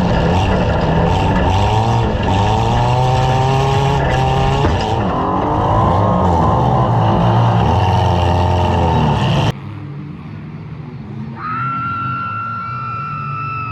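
Demolition derby car engines running hard and revving, their pitch rising and falling. About nine and a half seconds in the sound cuts off abruptly to a quieter background, and then a long, high-pitched tone is held for about two seconds before falling away.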